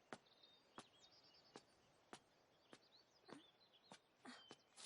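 Faint background birdsong, short chirps, with soft regular clicks about every two-thirds of a second.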